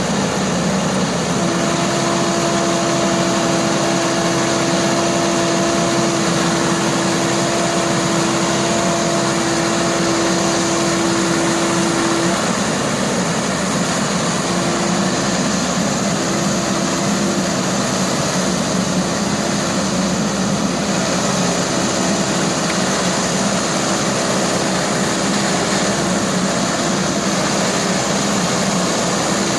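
Excavator's diesel engine running steadily, with a whine that holds for about ten seconds and then comes and goes.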